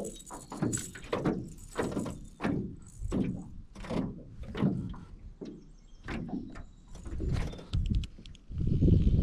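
Hollow thunks about every half second to second: water slapping the hull of a drifting boat. A gust of wind hits the microphone near the end.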